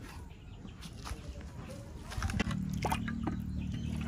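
Meat broth scooped with a bowl from a clay pot and poured into a blender jar of roasted tomatoes: liquid splashing and trickling, with a few knocks of handling. A steady low hum sets in about two seconds in.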